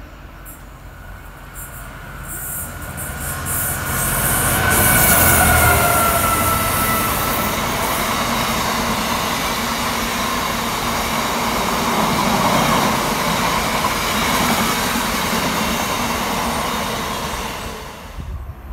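Freight train running through a station at speed: it grows louder as it approaches, and as the locomotive passes a high tone drops in pitch. Then comes a long, steady rumble and clatter of loaded box wagons rolling by, which cuts off near the end.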